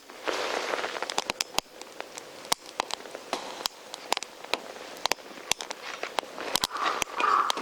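Wood campfire crackling, with many sharp irregular pops over a soft steady hiss.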